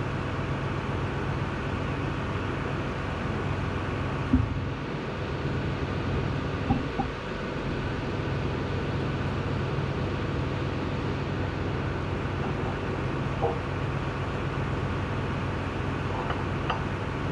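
A steady low machine hum, with a few short knocks and clinks of metal parts being handled, the sharpest about four seconds in.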